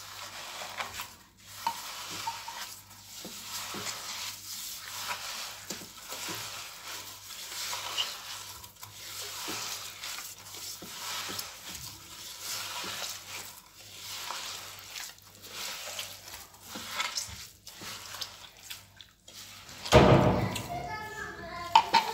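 Kitchen food-preparation noise: steady soft scraping with many light knocks, as hands work sweet dough. A child's voice breaks in loudly near the end.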